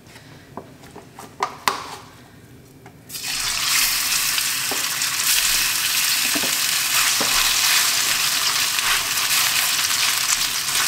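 A few light clicks of handling, then about three seconds in, thinly sliced marinated Dall sheep meat drops into hot oil in a wok and sizzles loudly and steadily. Occasional taps of a spatula stirring the meat come through the sizzle.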